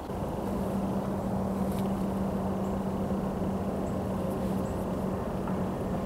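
Steady low rumble with a constant engine-like hum, the drone of a distant motor vehicle or engine running without change.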